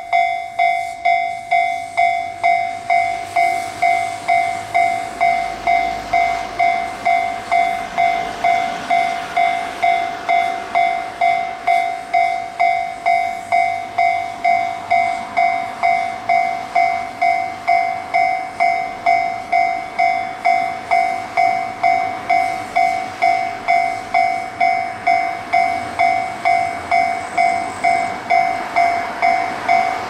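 Japanese railway level-crossing warning bell ringing steadily, an electronic two-tone ding repeating a little over one and a half times a second: the signal that a train is approaching and the crossing is closed.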